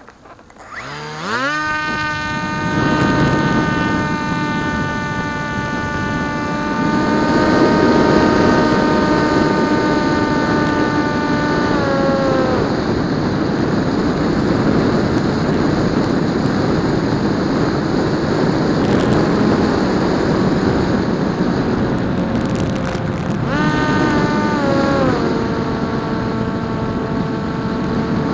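Electric motor and propeller of a PopWing foam RC flying wing spinning up about a second in to a steady whine over rushing wind noise. The whine is throttled back a little before halfway, leaving mostly wind. It is throttled up again briefly later on and settles to a lower steady tone.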